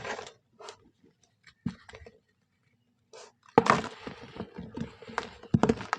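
Brown soft sand being crushed and crumbled by hand: a few scattered crunches, then a dense run of short crunches from about halfway.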